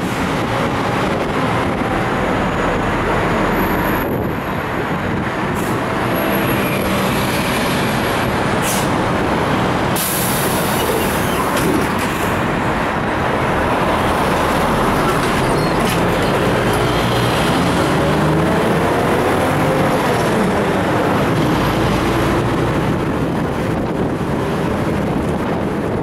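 Inside a moving Mitsubishi-built city bus with its windows open: the engine running and revving, its pitch rising and falling twice as it pulls through the gears, over steady road and wind noise and passing traffic.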